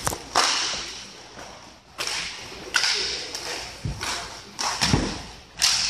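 Roller hockey play: a series of sharp cracks and knocks, about a second apart, from sticks slapping the puck and the puck striking the boards, each with a hall echo. A couple of lower, duller thumps come in the second half.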